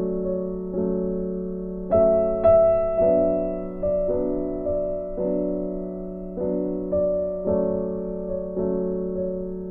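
Background music: soft piano chords struck about once or twice a second, each left to ring and fade.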